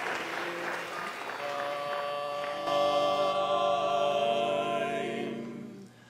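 Applause dies away. A single steady pitch-pipe note then sounds, and about a second later the barbershop quartet's men's voices take it up in a held a cappella chord, which fades out just before the end: the quartet taking its starting pitch before the song.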